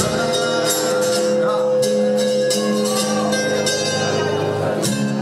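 Live band music: strummed acoustic guitar with drums and cymbal hits, and one long note held through the first few seconds.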